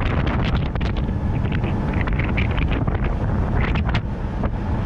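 Road noise from Super Swamper TrXus M/T mud-terrain tires rolling on asphalt under a moving Jeep Wrangler TJ, a steady rumble, with wind buffeting the microphone held outside the vehicle.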